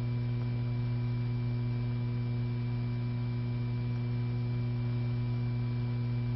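Steady low electrical hum with faint hiss, the background hum of an old film soundtrack, with no mechanical sound from the gun.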